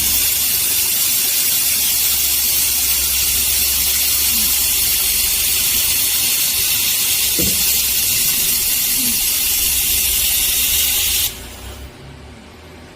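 Robotic laser welding system running with a loud steady hiss, which cuts off suddenly about eleven seconds in, leaving a low hum.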